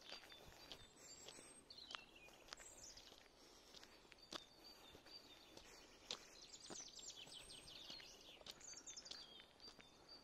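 Several small songbirds singing: quick high chirps, short falling whistles and rapid trills, busiest in the second half. A few faint clicks come through now and then.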